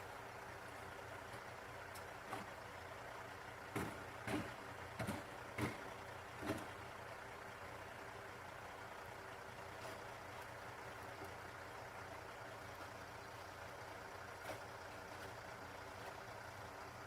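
A heavy vehicle's engine running steadily and faintly, with a handful of short knocks or crunches a few seconds in.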